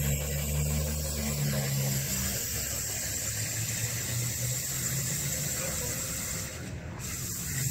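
Steady rushing noise of running floodwater, with the low hum of an idling vehicle engine that is strongest in the first two seconds.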